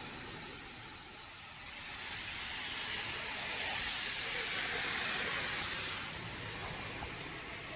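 Mark VII SoftTouch XT in-bay automatic car wash working over the car, heard from inside the cabin: water spray and spinning cloth brushes make a steady hiss that swells about two seconds in, is loudest in the middle, and eases near the end.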